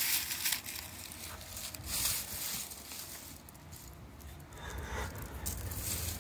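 Gloved hands digging and scraping through loose garden soil and rustling dried sweet potato vines, in short irregular bursts.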